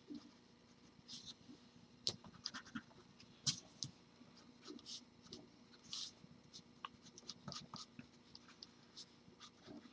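Graphite pencil scratching on drawing paper in short, irregular strokes while a figure is sketched, faint.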